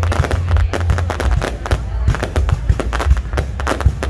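Fireworks going off: a rapid, unbroken string of overlapping bangs and crackles over a steady deep rumble.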